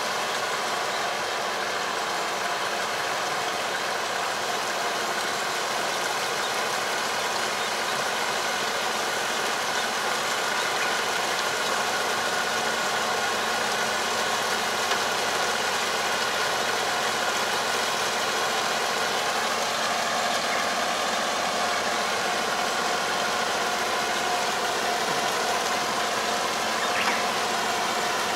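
Tractor's diesel engine running steadily while it pulls a powered harrow through a flooded rice paddy, puddling the field before rice planting.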